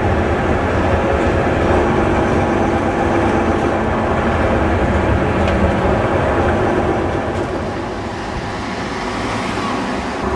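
Leyland Olympian double-decker bus running, with its engine and drivetrain making a steady drone that eases off about eight seconds in and picks up again near the end.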